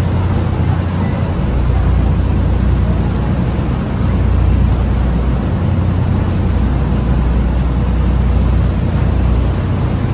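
Niagara Falls: a loud, steady rush of falling water with a deep rumble underneath.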